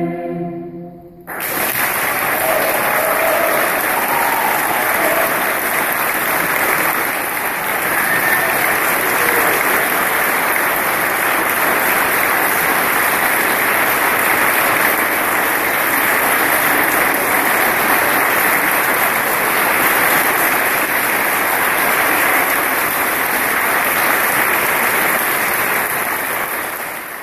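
A children's choir's last held chord ends about a second in, then an audience applauds steadily.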